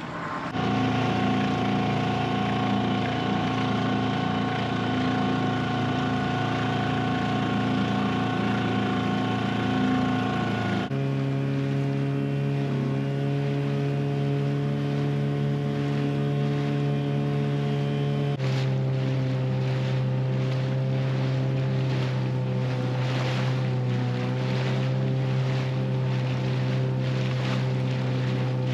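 Small Yamaha outboard motor running steadily, driving an inflatable dinghy across choppy water. Its engine note jumps to a different pitch twice along the way.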